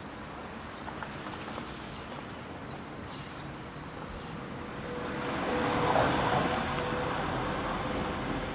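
A motor vehicle drives past on the street. Its noise swells to a peak about six seconds in and then fades slowly, with a steady hum running under it.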